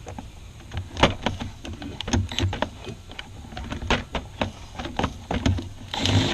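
Metal hand tools clicking and clinking irregularly as a wrench is fitted to and worked on a starter mounting nut in an engine bay, with a short scrape near the end.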